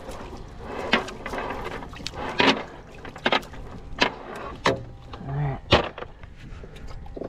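Irregular knocks and clatters as a cast net is emptied of live pilchards into a boat's live well and the fiberglass hatch lid is handled; about six sharp knocks, unevenly spaced.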